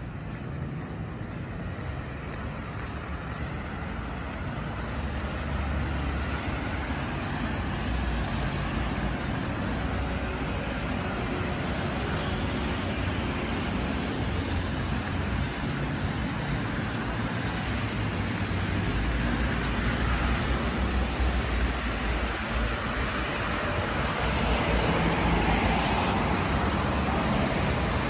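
City road traffic on a snowy street: a steady wash of cars and tyre noise with a low rumble, slowly getting louder.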